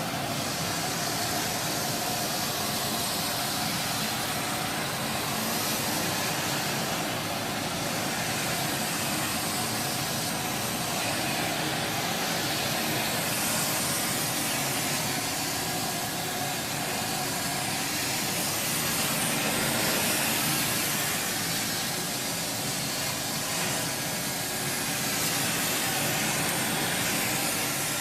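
Vintage Sterilaire (relabeled 1950s Eureka Roto-Matic) swivel-top canister vacuum cleaner running steadily. Its Lamb electric motor is quiet, and the rushing air through the machine is the loudest part of the sound.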